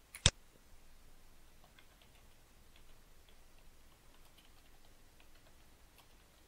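A sharp click, then faint computer keyboard typing: light, uneven key taps.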